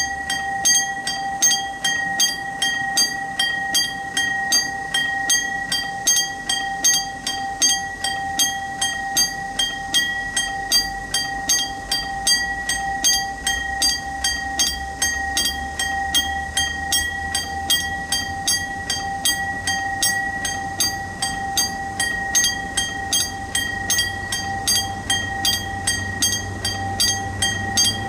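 Railway level-crossing warning bell ringing in a regular, repeating electronic ding over a steady tone, signalling that a train is approaching. A low rumble, the oncoming train, builds through the second half.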